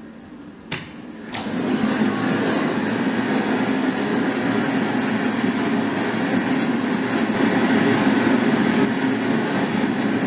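Two sharp clicks, then a steady pink-noise test signal from a loudspeaker sets in about a second and a half in and holds at an even level, a full hiss with most weight in the low-mid range.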